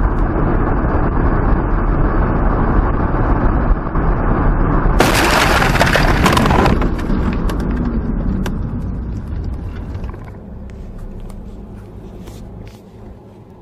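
Steady road and wind noise inside a car at highway speed. About five seconds in comes a loud crash lasting under two seconds as the windshield is struck and shatters. The noise then dies down, with scattered light clicks near the end.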